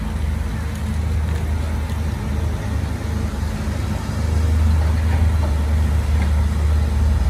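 Diesel engine of heavy construction equipment running with a steady low rumble, growing louder about four seconds in.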